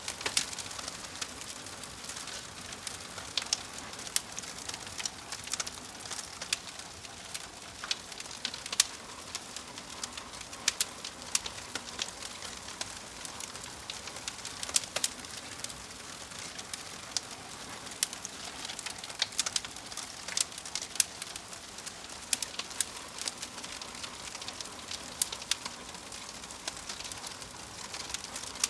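Wood logs burning in a fireplace: a steady hiss of the fire with frequent sharp, irregular crackles and pops.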